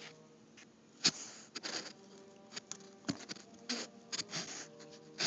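A hand smearing glue from a caulking gun along the edge of an extruded foam board: a string of short, irregular rubbing and patting noises.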